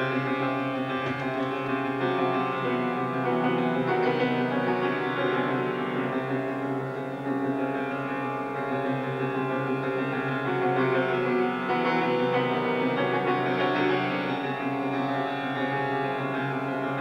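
Solo grand piano playing modernist music: a dense, unbroken stream of many-note chords, with a brief dip in loudness about seven seconds in.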